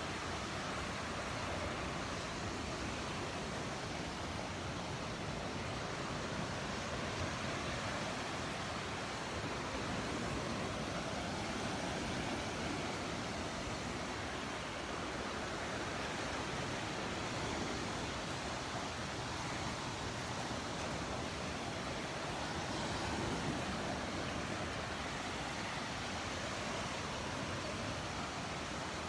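Surf washing onto the beach, a steady rushing noise with slow, gentle swells, mixed with wind on the microphone.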